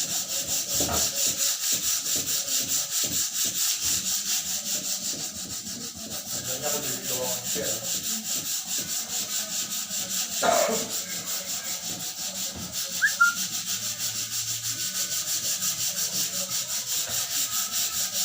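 Sandpaper rubbed back and forth over wood by hand in steady, even strokes, about three a second. A short, louder knock comes a little past the middle.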